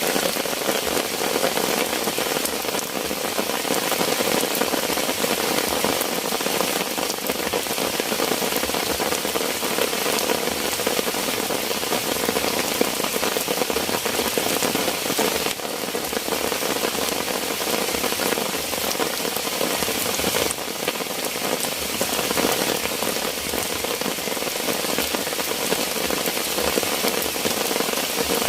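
Heavy rain falling steadily: a dense, even hiss of countless drop hits.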